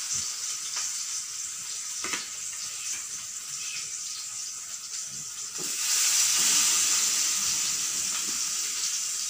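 Masala-marinated fish pieces shallow-frying in hot oil in a pan, a steady sizzle that gets louder about six seconds in as more pieces go into the oil. A few light knocks of the spoon are heard near the start.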